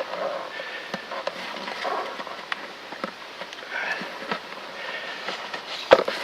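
Handling noise: crackling and scattered light clicks, with one sharp knock near the end.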